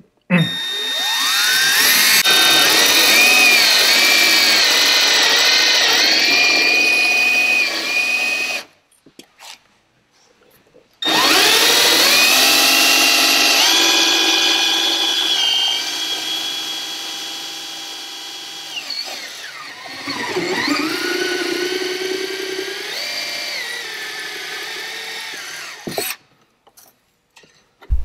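Cordless drill driving a hole saw through a plastic kayak hatch cover: two long runs of the drill's motor whine, the first about eight seconds, then after a short pause a longer one, the pitch dipping and rising as the cutter bites into the plastic.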